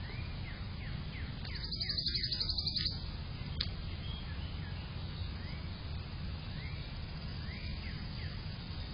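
Outdoor backyard ambience picked up by a security camera's microphone: a steady low hum under short, repeated bird chirps, with a fast high trill lasting about a second and a half near the two-second mark and a single sharp click shortly after.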